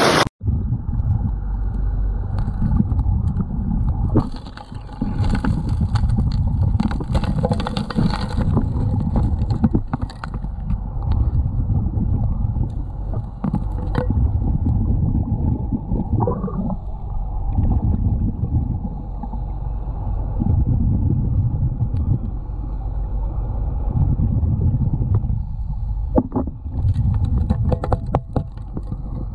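Suction gold dredge running, heard underwater: a muffled, steady low rumble from its engine and pump, with occasional sharp knocks of rocks and gravel on the river bed.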